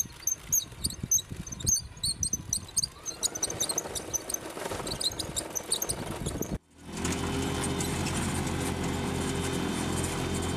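Small tracked military robot driving on a dirt road, its tracks clicking and squeaking over a low motor rumble. After an abrupt cut, a steady, even mechanical hum from a tracked robotic vehicle running in place.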